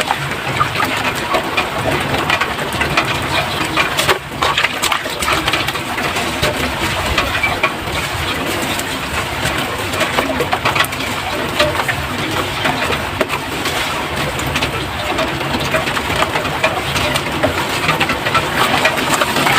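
Soft sand-cement crumbling and dissolving in water: a dense, steady crackle of many small crunches and pops, with a brief break about four seconds in.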